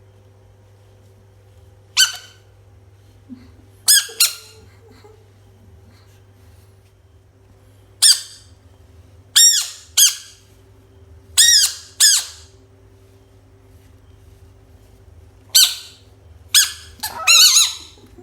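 Frog screaming: about a dozen short, high-pitched squeaking calls, each rising and falling in pitch, coming singly or in pairs with pauses of a few seconds between, and a quick run of several calls near the end.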